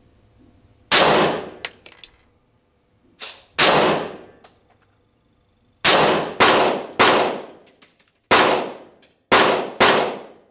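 Pistol fired about nine times at an uneven pace, each shot sharp and loud and trailing off over about half a second.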